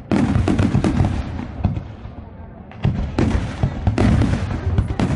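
Aerial fireworks bursting in quick volleys of bangs and crackling. A sudden barrage just after the start dies away, and a second barrage breaks out about three seconds in.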